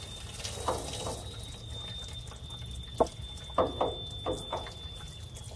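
Diesel fuel pouring from a truck fuel tank's outlet and splashing into a tub of diesel, spattering over a hand held in the stream. A few sharp knocks come near the middle, the loudest about three seconds in.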